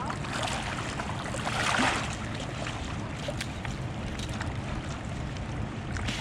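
Steady low rumble of wind and water around a small fishing boat, with a brief rush of noise a little under two seconds in and a few faint knocks.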